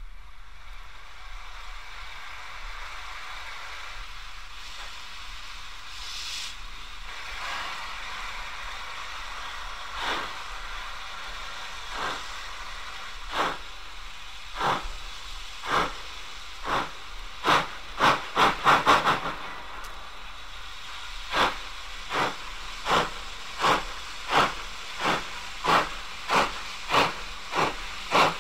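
'D' class 4-4-0 steam locomotive No. 31577 starting a train away up a 1 in 200 gradient. A steady hiss comes first, then sharp exhaust beats begin about ten seconds in and gradually quicken, broken near two-thirds of the way by a brief flurry of rapid beats. An aircraft drones distantly behind.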